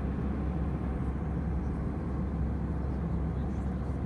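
Steady low drone of a jet airliner's cabin: engine and airflow noise, even throughout.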